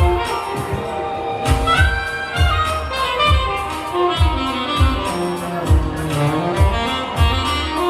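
Saxophone playing a slow, sustained melody over a backing track with a steady kick-drum beat, a little under one beat a second.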